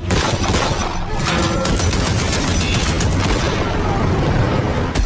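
A volley of pistol gunfire, many shots in quick succession.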